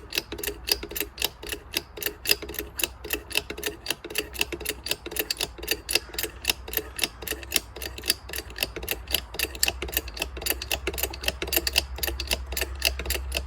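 Ratchet wrench clicking in a steady, even run, several clicks a second, as it turns the screw of a press forcing a new hub into a propeller; the hub is going in easily with no effort. A low steady hum lies underneath.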